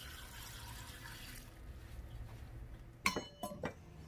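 Water pouring into a stainless steel pot of soybean sprouts, stopping after about a second and a half. About three seconds in, the pot's stainless steel lid is set on with a few sharp metallic clinks and a brief ring.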